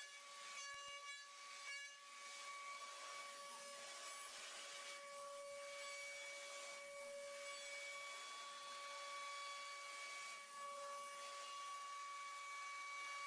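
CNC milling machine cutting a metal workpiece: a steady high-pitched whine from the spinning cutter, made of several held tones, over a hiss.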